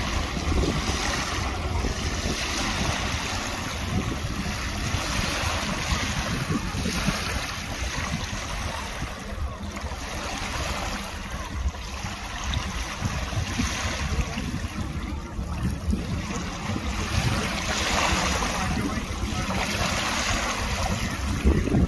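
Small waves lapping and washing against the shore, swelling and fading every few seconds, with wind buffeting the microphone as a low rumble.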